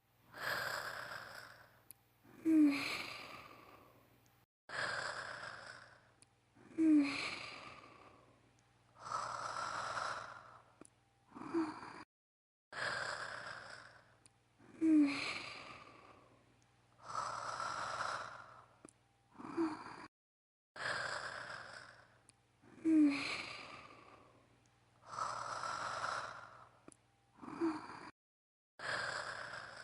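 A woman's voice performing cartoonish anime-style snoring. Each breath is a long breathy inhale followed by a short squeaky snort, repeating regularly about every four seconds.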